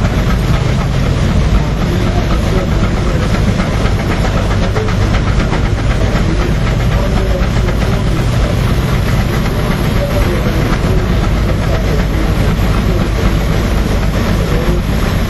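20 HP Minneapolis steam traction engine driving a threshing separator: a steady mechanical clatter with hissing steam and a low hum.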